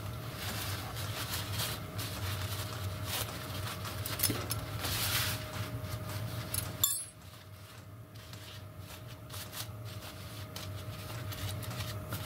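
Small brass pump parts and hand tools clinking and being handled on a workbench, with paper towel rustling around the middle and one sharp click just before seven seconds in, over a steady low hum that drops off after that click.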